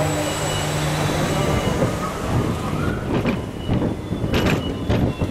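Roller coaster train rolling along its steel track, the wheels rumbling with several sharp clacks near the end. A steady low hum stops about a second and a half in.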